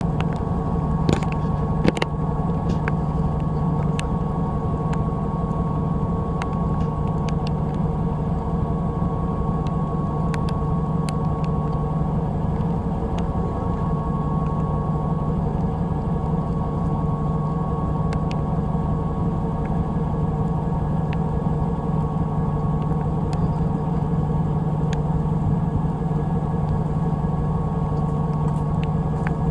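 Fishing boat's engine running steadily, a constant low drone, with a few small knocks about a second or two in.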